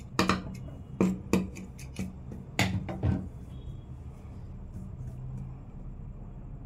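Hands handling and repositioning fabric on an industrial sewing machine table between seams: about six sharp taps and knocks in the first three seconds. After that only a steady low hum.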